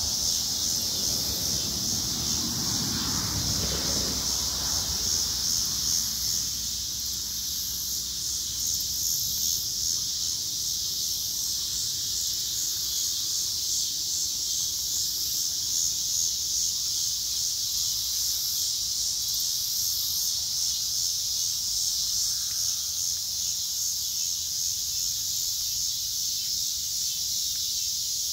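A steady, high-pitched chorus of insects shrilling in summer vegetation, with a soft rustle a few seconds in.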